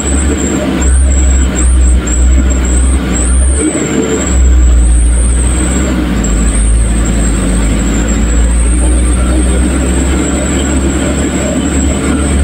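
A vehicle's engine and tyres heard from inside the cab as it drives over a rough dirt road: a steady deep rumble with road noise, dipping briefly a few times in the first half, and a thin high whine that wavers in pitch throughout.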